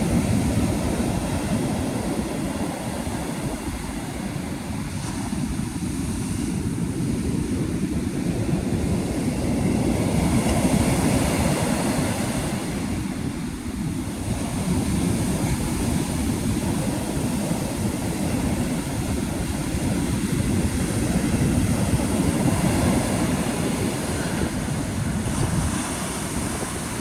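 Atlantic surf breaking on a beach: a steady, heavy rush of waves that swells and eases every several seconds.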